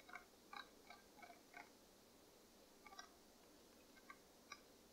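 Near silence with about a dozen faint, irregular clicks from a computer mouse scroll wheel as a web page is scrolled down.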